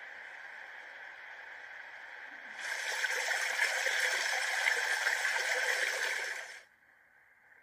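A thick stream of water pouring and splashing over fresh green onions in a wicker basket as hands rinse them. It comes in loudly about two and a half seconds in, over a fainter steady rush, and cuts off sharply near the end.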